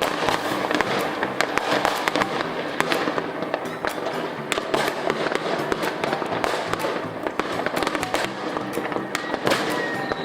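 New Year's Eve fireworks and firecrackers going off all over the neighbourhood: a dense, unbroken barrage of cracks and bangs over a continuous rumbling wash.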